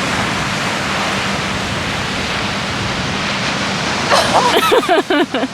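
Steady rushing noise of ocean surf on a beach. From about four seconds in, excited voices call out over it.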